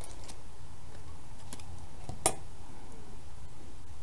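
Scissors snipping die-cut cardstock: a few faint snips, and one sharper snip a little past two seconds in, over a steady low hum.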